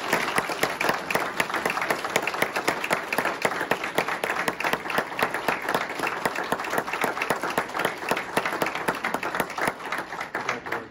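Audience applauding: dense, steady hand clapping that tapers off near the end.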